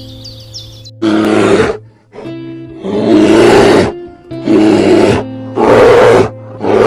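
Lion roaring: a series of five or six loud, rough calls, each up to about a second long, over steady background music.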